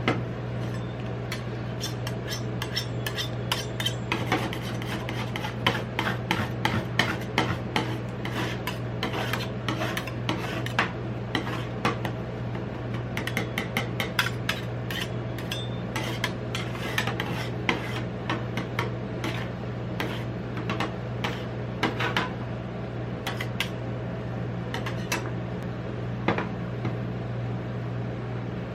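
Metal spatulas tapping, chopping and scraping on the frozen steel plate of a rolled ice cream machine, with quick runs of taps, over a steady low hum from the machine.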